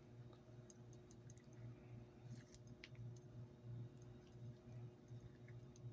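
Near silence with faint, scattered light clicks from paracord being handled and woven by hand, over a low steady hum.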